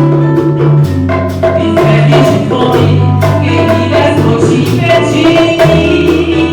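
Live acoustic band music: a bass line moving between long held notes under regular percussion strikes and other instruments.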